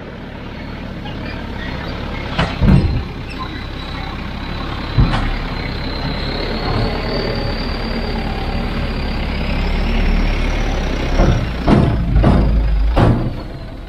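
Heavy diesel construction machine running, with a faint high whine that slowly rises in pitch and then falls. Sharp knocks and clanks come twice about two and a half seconds in, once about five seconds in, and several times near the end.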